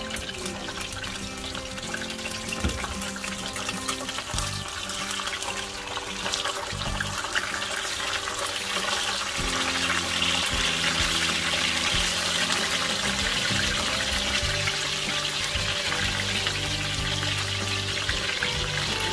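Background music over water running from a tap, the water growing louder about halfway through.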